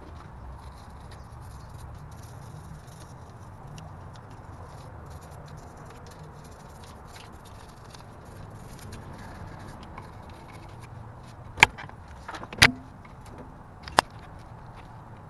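Light scratching of a small brush scrubbing grease and dirt off engine parts, over a low steady hum. Near the end come three sharp knocks of something hard, the loudest sounds here.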